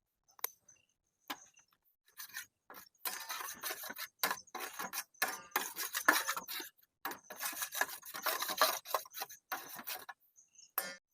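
Irregular rubbing and scraping strokes in quick succession, starting about two seconds in and stopping about a second before the end.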